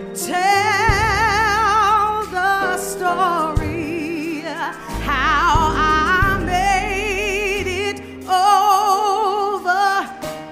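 Gospel song: a solo singer holding long notes with heavy vibrato, over sustained accompaniment with deep bass notes.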